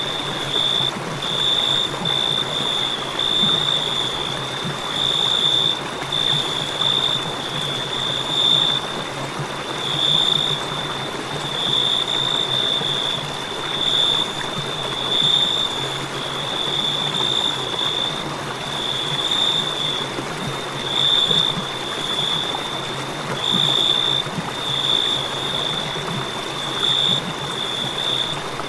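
Crickets chirping: a high, steady trill that swells and fades every second or two, over a constant hiss.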